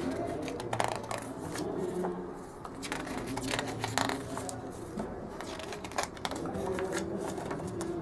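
Paper rustling as the glossy pages of a CD booklet are handled and turned, in a few short crinkles.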